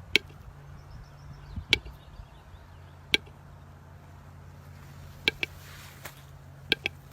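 A series of sharp taps or knocks, about seven, at irregular intervals, some in quick pairs, over a low steady hum.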